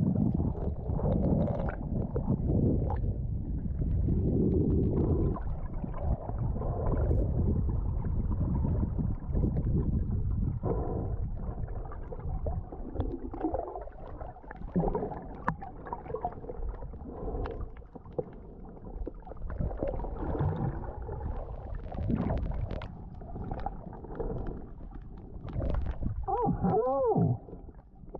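Muffled underwater noise picked up by a mask-mounted GoPro: water sloshing and rumbling against the camera housing as the swimmer moves, with a short gurgle that rises and falls in pitch near the end.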